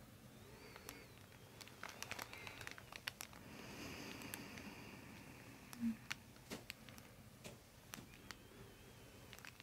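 Faint, scattered clicks and soft rustles of hands on hair and skin during gentle manual neck traction. A soft breath comes near the middle, and a short low knock about six seconds in.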